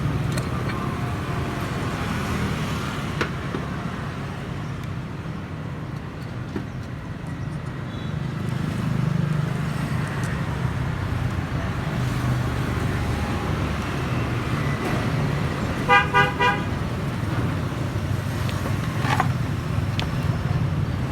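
Steady low road-traffic rumble, with a vehicle horn giving a quick burst of short toots about three-quarters of the way through.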